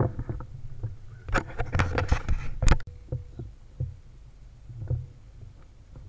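Handling noise from an air rifle with a scope-mounted camera: irregular knocks, rubs and a low rumble as the rifle is shifted to find the target. The handling is busiest in the first three seconds, then breaks off abruptly and continues as sparser knocks.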